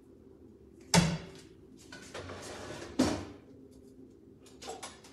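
Kitchen clatter: two sharp knocks about two seconds apart, the first the loudest, with a short scraping between them and a few light clicks near the end.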